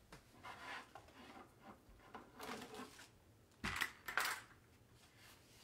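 Quiet handling noise: faint rustling, then two sharp clacks close together about four seconds in, as of stiff objects being knocked or set down.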